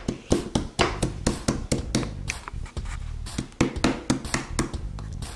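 Aluminium meat mallet pounding a piece of chicken heart on a cutting board: a quick, uneven run of strikes, about three or four a second, flattening the meat into a thin chop.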